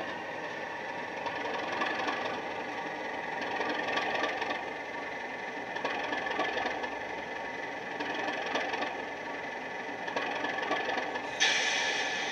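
Model Class 37 diesel's DCC sound decoder, running Legomanbiffo's sound file through an EM1 speaker fitted in the fuel tanks, playing the English Electric diesel engine note as the loco creeps forward and comes to a stand. The engine sound swells every couple of seconds, and near the end a sudden louder burst of hiss cuts in.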